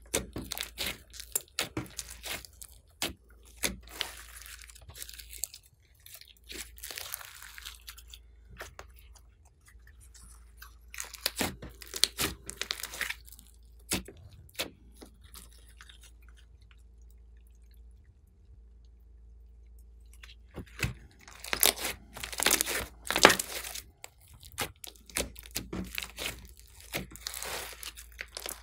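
Hands kneading and squeezing glossy slime mixed with foam beads and clay: sticky crackling pops and crunches in irregular bursts, with a quieter lull a little past the middle.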